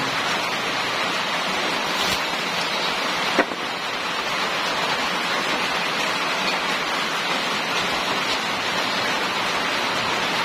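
A steady rushing noise, with two light knocks about two and three and a half seconds in.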